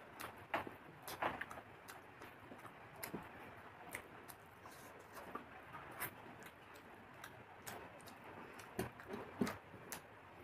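Eating sounds: irregular small clicks and crunches of chewing fried food, with fingers picking at the food on a plate.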